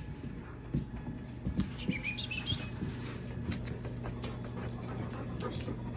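A dog whining briefly about two seconds in, among scattered clicks and knocks over a steady low hum.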